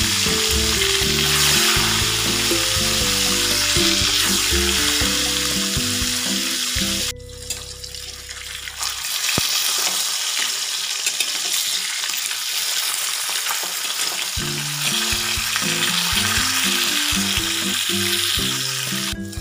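Snakehead (shol) fish steaks deep-frying in a wok of hot oil: a steady, dense sizzle. It dips briefly about seven seconds in, then picks up again.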